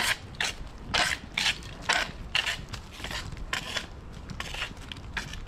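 Inline skate wheels rolling over a rough asphalt path littered with twigs and dry leaves, crunching and scraping in repeated strokes about twice a second. Low wind rumble on the microphone runs underneath.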